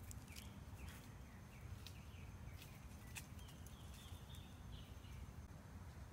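Quiet outdoor ambience: a few faint, short high bird chirps and light clicks over a low rumble.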